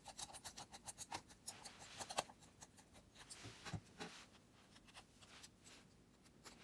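Faint handling noise of a plastic bike headlight being turned over in the hand: small clicks, taps and rubbing, busiest in the first couple of seconds and fading towards the end.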